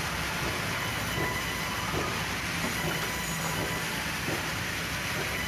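Large band saws in a sawmill running, a steady mechanical din that holds even throughout.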